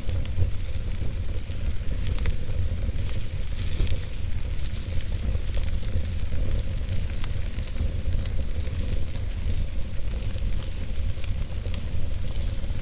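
Fire burning in a fireplace: a steady hiss over a low rumble, with frequent small crackles and pops.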